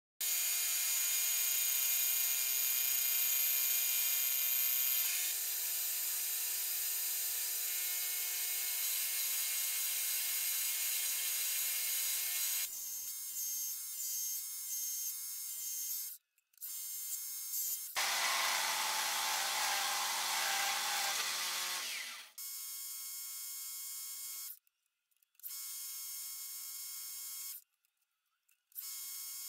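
Metal lathe running and turning a small metal part in its chuck: a steady machine whine with many steady tones, heard in several short takes that start and stop abruptly. One take near the middle is louder and rougher.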